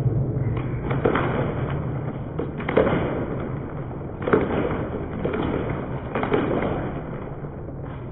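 Ballpark crowd noise heard from the stands: a steady din broken by about five sudden louder bursts.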